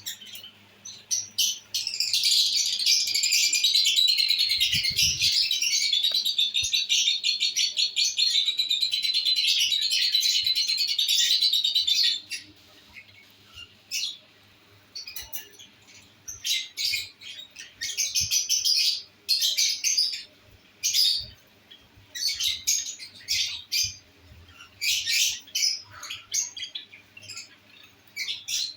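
Pet lovebirds chattering: a fast, unbroken run of high chirps for about the first twelve seconds, then shorter bursts of chirps with gaps between them. A brief low thump comes about five seconds in.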